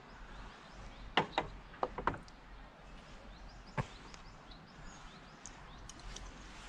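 Hand tools clicking and knocking while working on engine-bay bolts: a few short, sharp clicks in the first two seconds and one more near the middle, over a faint background.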